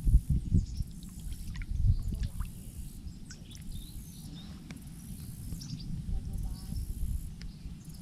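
Low, uneven rumble of wind on the microphone with scattered bird chirps and a few soft knocks.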